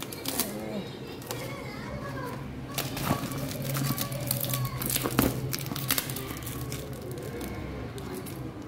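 Plastic parcel wrapping crinkling as it is handled, in a run of sharp crackles that is densest about three to six seconds in, over a low steady hum.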